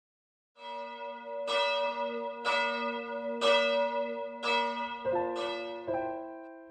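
Church bell tolling about once a second, each strike ringing on and overlapping the next. Near the end, lower piano notes begin to come in beneath it as the intro music starts.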